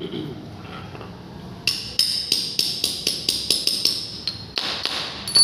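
Metal-on-metal tapping: a steel tool knocked repeatedly against small metal fittings on a tiled floor, sharp ringing strikes about four a second starting a couple of seconds in, ending in a louder clank.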